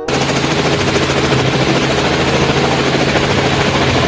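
Light helicopter with a shrouded tail rotor flying: a fast, steady rotor chop over a continuous engine hum.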